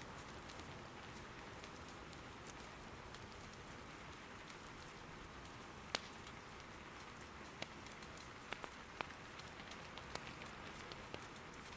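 Steady soft rain, with a few sharp clicks and pops scattered through it; the loudest comes about six seconds in.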